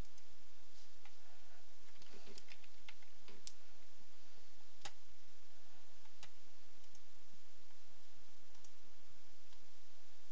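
Computer mouse clicks and a short run of keyboard keystrokes: a quick cluster of clicks about two to three seconds in, then single clicks spaced a second or more apart, over a steady low background hum.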